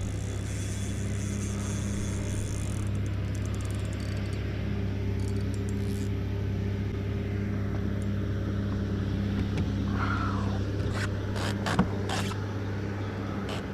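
A steady low motor hum runs throughout, with a few sharp knocks about eleven to twelve seconds in.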